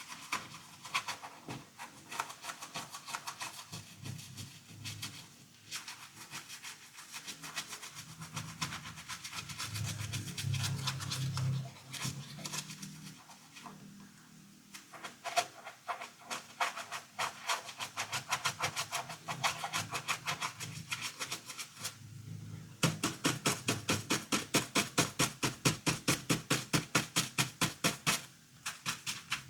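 Scrubbing strokes on a plastic Batman toy car during cleaning, a rapid dry scratchy rubbing. Near the end the strokes become louder and regular, about four a second.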